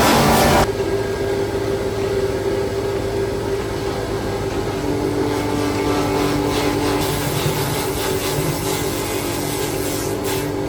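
Heavy sawmill machinery running with a steady drone and hum. A louder machine sound cuts off suddenly just under a second in.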